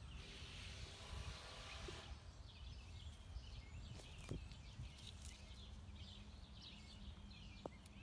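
Faint outdoor ambience: small birds chirp over and over above a low rumble, with a brief hiss in the first two seconds.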